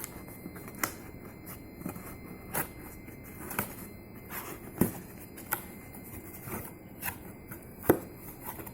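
Phone box packaging handled by hand during unboxing: irregular sharp clicks and crackles, the loudest about five and eight seconds in.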